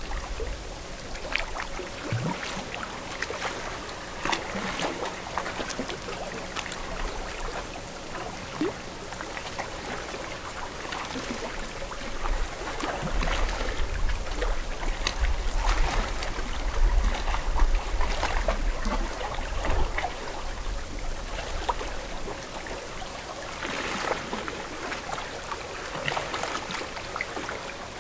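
Lake water lapping and splashing at the shore in a steady wash of small splashes. A low rumble swells through the middle stretch and fades again.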